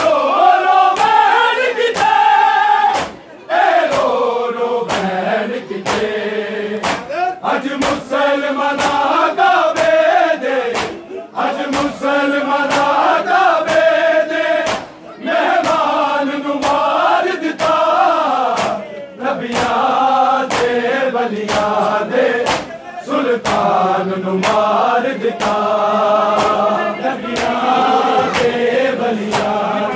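A group of men chanting a Punjabi noha (a mourning lament) together, the melody rising and falling line by line. Under it runs a steady beat of hand strikes on the chest (matam), about two a second.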